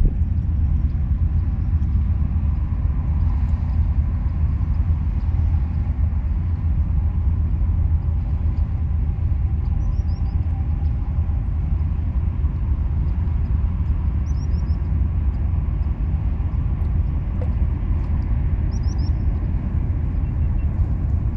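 Wind rumbling steadily on the microphone. Three short, high bird chirps come through it, about 10, 14 and 19 seconds in.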